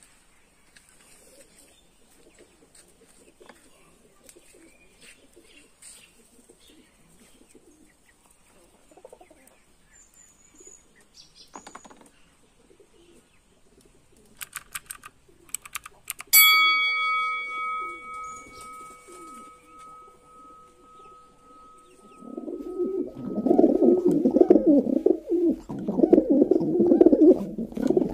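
Domestic pigeons cooing softly, with faint clicks. A little past halfway a single sharp ding rings out and fades over several seconds, and near the end a much louder, dense cooing takes over.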